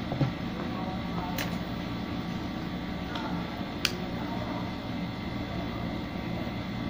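Steady hum of a room air conditioner, with two short sharp clicks as a camera is handled.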